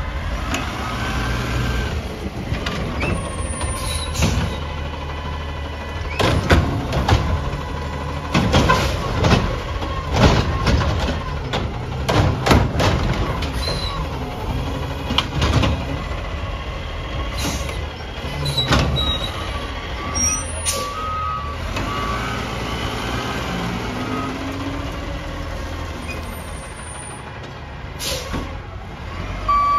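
Heil automated side-loader recycling truck's diesel engine running while its hydraulic arm grabs a recycling cart and tips it, with a run of loud bangs and clatter as the cart is shaken out into the hopper. Short repeated backup beeps sound about two-thirds of the way through and again near the end.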